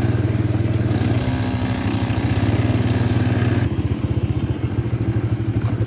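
Vehicle engine running steadily with an even pulsing beat while travelling. About three and a half seconds in, the higher hiss drops away and the engine sound turns duller.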